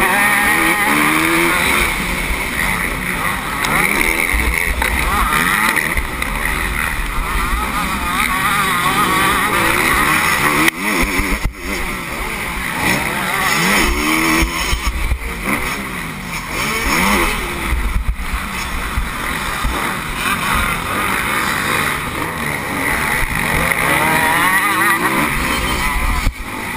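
Motocross bike engine heard from an onboard camera, revving hard and falling back again and again as the rider accelerates, shifts and brakes for turns, with two brief dips in the engine sound midway.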